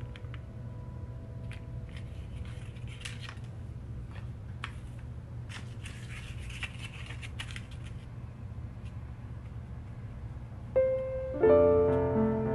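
Paper crinkling and clicking as folded craft paper is handled, in a string of small sharp rustles through the middle. Soft piano background music fades out at the start and comes back in near the end.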